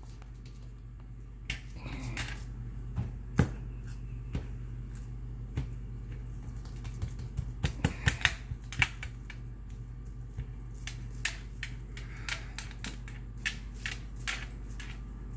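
Hands pressing and patting raw ground-meat meatloaf mix on a metal baking sheet, giving scattered soft slaps, squishes and sharp little clicks and taps, over a low steady hum.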